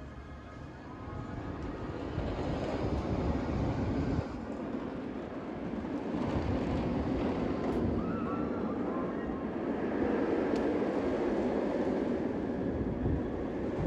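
A steady rumbling noise with no clear pitch, growing louder over the first few seconds and then staying loud.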